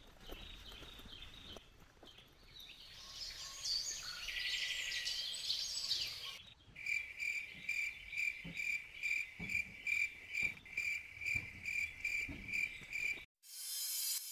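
Insect chirping in tropical forest: faint, varied high chirps at first, then a steady run of high pulsing chirps at two to three a second that cuts off abruptly about a second before the end.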